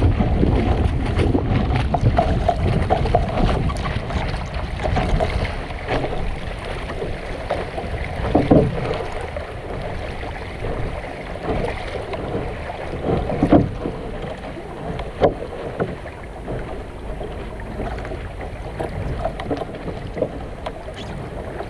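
Sunfish sailboat under sail: wind rushing over the microphone and water washing along the small hull. A few short, louder splashes or knocks come about eight, thirteen and fifteen seconds in.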